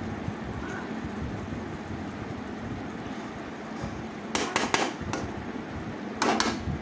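Metal spatula scraping and knocking against a metal kadai while stirring a thick cooked brinjal curry. There is a quick cluster of clatters a little over four seconds in and another short one near the end, over a steady low hum.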